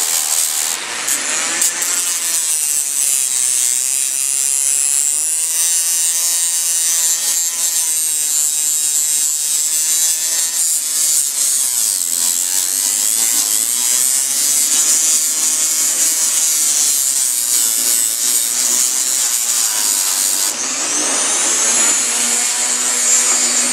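Small electric rotary tool with an abrasive pad whining and grinding against the cylinder head's intake port face, scrubbing off old gasket sealant. Its pitch wavers as it is pressed on and rises near the end.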